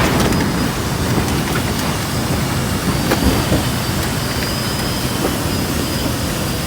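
Strong wind blowing: a steady rushing noise with a heavy low rumble and a few faint ticks.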